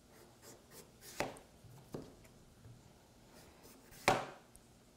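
Kitchen knife chopping sweet potatoes on a cutting board: a few irregular chops, the sharpest about four seconds in, with lighter taps between.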